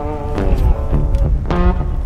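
Background music: a guitar tune with a bass line, notes plucked one after another.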